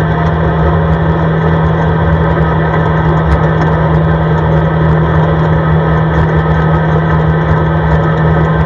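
CFMoto ATV engine running at a steady, unchanging pitch as the quad drives along a snow-covered road at an even speed.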